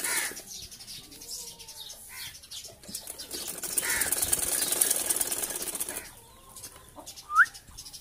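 Rose-ringed parakeet giving a couple of short squawks, then a sharp rising chirp near the end, with a stretch of rustling in the middle as it tugs at a pom-pom toy.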